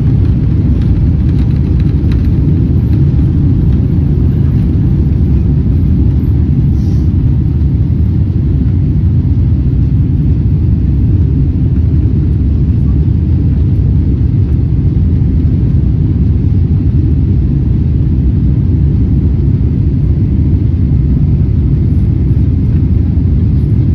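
Cabin noise of a Boeing 777-300ER on its takeoff roll and lift-off: the jet engines at takeoff power making a loud, steady, deep rumble, with a few light rattles near the start.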